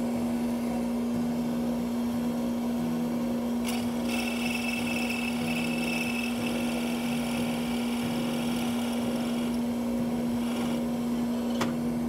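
Delta drill press running with a steady hum. From about four seconds in until nearly ten, the carbide pen mill cuts into the end of a Brazilian rosewood pen blank, adding a higher scraping whine, and trims it down to the brass insert.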